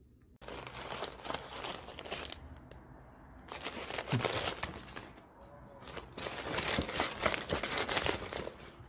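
A cat rummaging with its head in a cardboard box of foil-wrapped tea sachets, crinkling the foil packets in three bouts of rustling, starting about half a second in.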